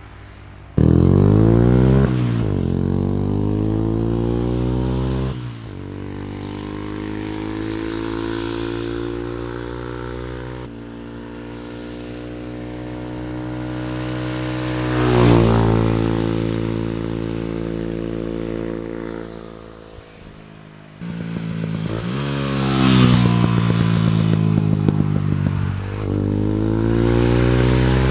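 Kymco K-Pipe 125's single-cylinder four-stroke engine through a long Akrapovič exhaust, revving hard. The engine note climbs and falls again and again, with several abrupt shifts in pitch. There is popping and crackling from the exhaust on the overrun.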